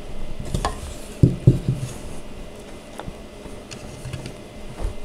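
Light wooden knocks and clacks as the rails of a doll high chair are pushed into the holes in its legs: a few scattered taps, two louder ones close together about a second and a half in.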